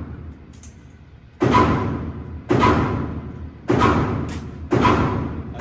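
Four rifle shots fired one at a time, about a second apart, each followed by a trailing echo.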